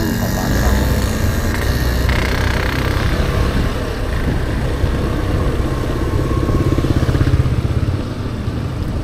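Suzuki Burgman Street 125 EX scooter's single-cylinder engine running steadily at low riding speed.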